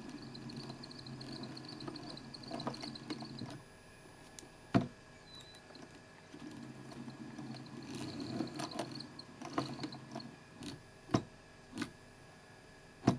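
Pfaff 230 sewing machine running slowly on a home-built motor drive, stitching back and forth through six layers of vinyl with heavy polyester thread to lock the stitch. A faint steady motor hum comes in two stretches with a pause between, and several sharp clicks come from the needle and mechanism, which the owner traces to the needle hitting the presser foot when sewing in reverse.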